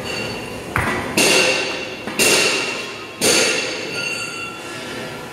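Metal parts of a concrete block-making machine clanging: a light knock, then three loud metallic strikes about a second apart, each ringing on and fading, over the machine's steady running noise.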